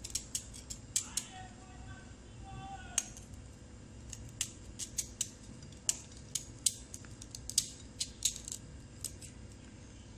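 Kitchen knife peeling the spiny skin off a kakrol (spiny gourd) in thin strips: irregular sharp scraping clicks as the blade bites the rind, about two a second, with a short lull near the start.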